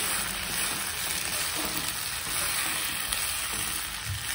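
Fried rice with mushrooms and paneer sizzling in an iron kadhai while a wooden spatula stirs and tosses it: a steady frying hiss with the rustle of the rice being turned over.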